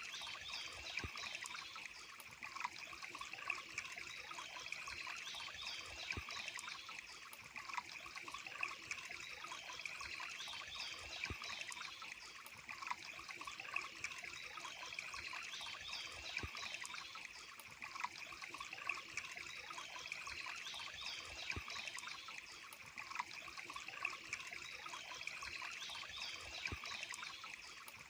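Water trickling steadily over stones in a small stream, with little splashes now and then.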